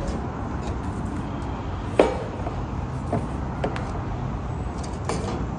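Forklift engine running with a steady low rumble, with one sharp knock about two seconds in and a few fainter clicks after it.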